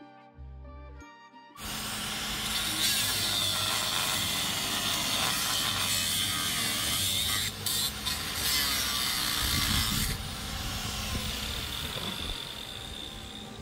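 Brief background music, then about a second and a half in a 4.5-inch angle grinder starts cutting through the aluminium bell housing of a Nissan 6GP0B six-speed transmission, a loud steady grinding that eases somewhat around ten seconds in and carries on.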